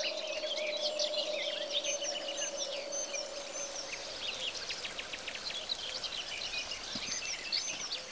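Birdsong from several small birds chirping and trilling together, with a steady low hum underneath that fades out about halfway through.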